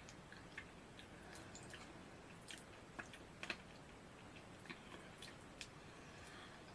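Faint, irregular pops and crackles of Meisan soda-flavoured popping candy, a Peta Zeta-like candy, going off in the mouth as it is eaten, with light chewing.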